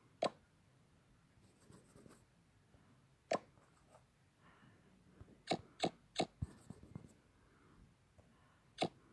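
Six sharp, short clicks or taps at irregular intervals, three of them in quick succession around the middle.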